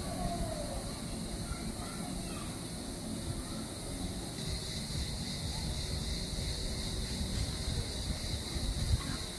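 Outdoor ambience: wind rumbling on the microphone, with a steady high hiss that grows louder about halfway through. A short falling call comes near the start.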